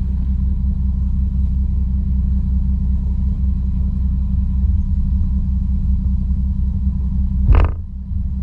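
Volkswagen Golf Mk5 R32's VR6 engine with the catalytic converters removed, running at a steady low drone under light load. About seven and a half seconds in comes one sharp exhaust pop, after which the engine note briefly drops away.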